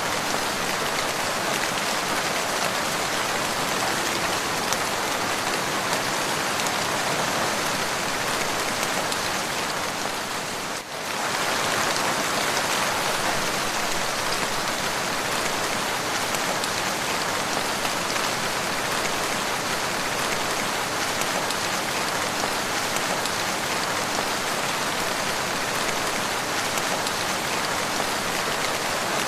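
Steady rain falling and pattering on surfaces, an even dense hiss that dips briefly about eleven seconds in.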